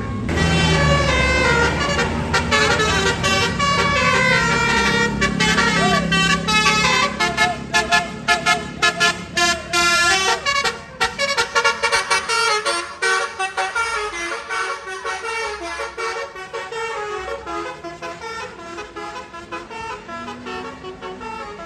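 A tour bus's basuri telolet horn plays a quick multi-note melody over the low rumble of the bus. Partway through the horn notes turn into a fast stuttering run, then fade as the bus moves away.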